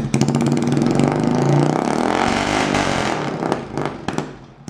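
Straight-piped Chinese 110cc quad's single-cylinder four-stroke engine running loud. It revs up about a second and a half in, drops back, and dies down near the end.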